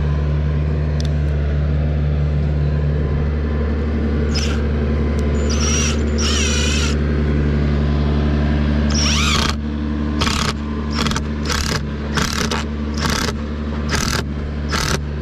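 Tractor engine running steadily, with high metallic squeals from its moving parts. About nine seconds in the engine eases off, and a sharp squeak then repeats about twice a second.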